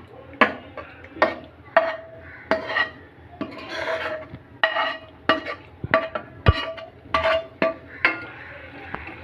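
A metal spoon knocking and scraping against a steel cooking pot, about a dozen sharp clinks that each ring briefly, with a longer scrape about four seconds in, as spiced chicken curry is scooped and stirred into a pressure cooker.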